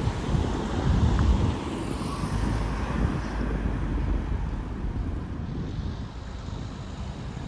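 Road traffic with a motor vehicle going by close to the microphone: a low engine and tyre rumble, loudest in the first second or so, then a steadier rumble with some wind on the microphone.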